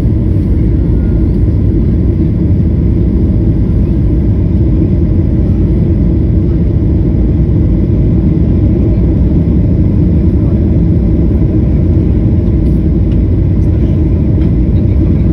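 Steady low rumble of an airliner's cabin noise, engines and airframe running evenly with no change in pitch or level.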